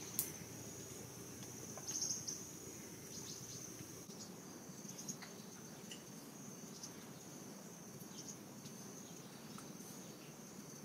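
Steady high-pitched insect trill, with a few faint clicks, the loudest about two seconds in.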